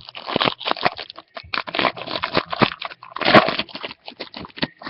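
A foil trading-card pack wrapper being torn open and crinkled by hand, with dense, irregular crackling and rustling.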